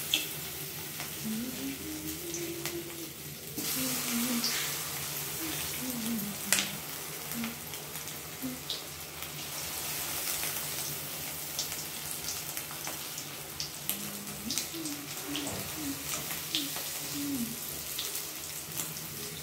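Marinated chicken pieces deep-frying in hot oil in a kadai: a steady sizzle with scattered sharp crackles and pops, the hiss growing louder about three and a half seconds in.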